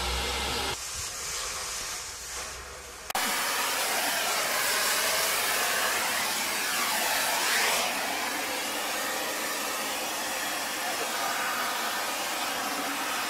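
Oxy-fuel cutting torch hissing steadily as it cuts at the steam locomotive's rusted boiler casing. The hiss comes in about three seconds in, after a short quieter stretch.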